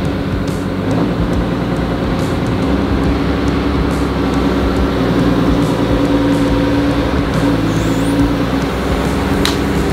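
Heavy machine's engine running steadily under varying throttle: it picks up about a second in, rises further near three seconds, and eases back shortly before the end, with a few light clicks over it.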